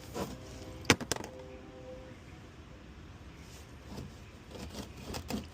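A single sharp click about a second in, followed by a couple of lighter clicks, with the last held note of background music fading out; a few light knocks near the end.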